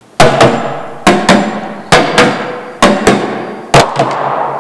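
A drum beat played with metal serving spoons on upturned plastic buckets: two quick strikes about once a second, in a steady rhythm.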